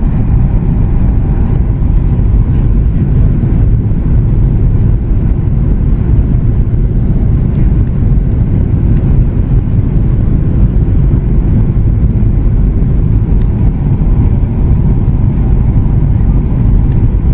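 Steady cabin noise of a Boeing 737 MAX 8-200 heard from a window seat: the LEAP-1B engines and the airflow making an even, loud low roar with no changes.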